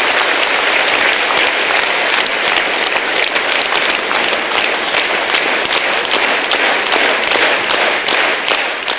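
Large crowd applauding, a dense steady patter of many hands clapping.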